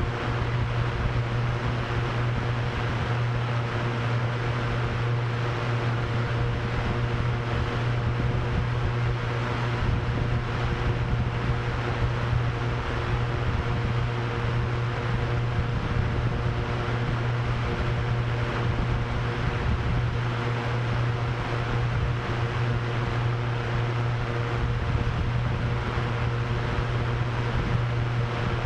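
Drone propellers spinning with a steady low hum and a few fainter steady tones above it, mixed with constant rushing wind.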